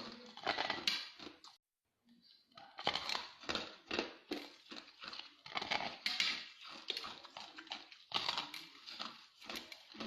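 Ice being bitten and chewed: quick, irregular crunching and crackling. It breaks off for a moment about a second and a half in, then carries on.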